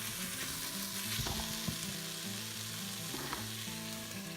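Garlic, bell peppers and dry spices sizzling in the hot inner pot of an Instant Pot on the sauté setting, with a few scrapes from stirring.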